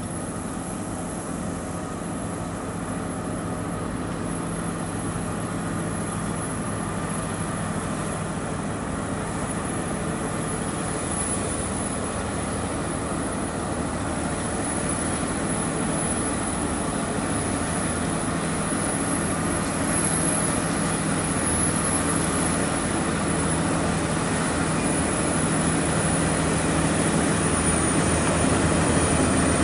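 Diesel engine of a FAW heavy truck loaded with iron, pulling uphill at steady revs and growing steadily louder as it approaches.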